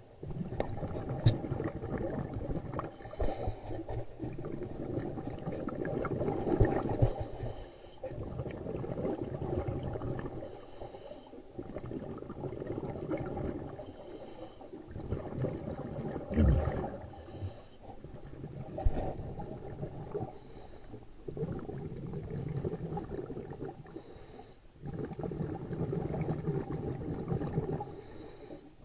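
Scuba diver breathing through a regulator, heard underwater: a muffled rumble of breaths and bubbling exhalations that swells and fades in a regular cycle, about one breath every four seconds.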